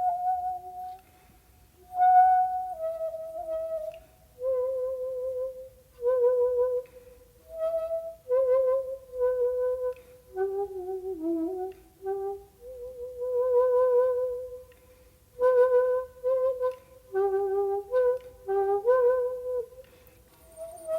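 Solo shakuhachi, the end-blown Japanese bamboo flute, playing a slow melody in short phrases separated by brief silences. Some notes are held long with a wavering pitch.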